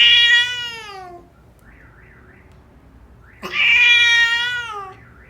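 A Persian cat meowing twice, loud and drawn out, each meow falling in pitch toward its end, the second about three seconds after the first.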